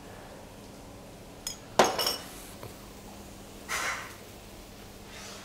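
Spoon and porcelain dishes clinking: a light clink about one and a half seconds in, then a louder cluster of clinks and clatter just after. A short rush of noise follows near four seconds in.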